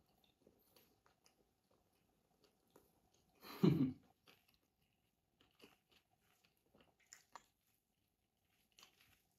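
Close-up chewing and small wet mouth clicks of a person eating kottu roti mixed with melted ice cream by hand, with one louder, fuller mouth sound about three and a half seconds in.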